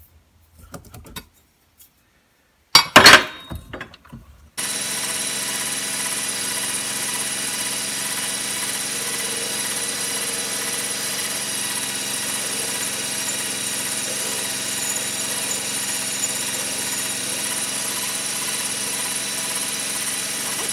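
A few metallic knocks and one loud clank near three seconds in. Then a metal lathe runs steadily, its motor and gearing giving an even hum with several constant whining tones as the chuck spins with a boring bar at the work.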